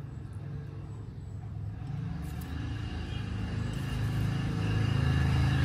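A motor vehicle's engine running, a low steady hum that grows steadily louder from about two seconds in.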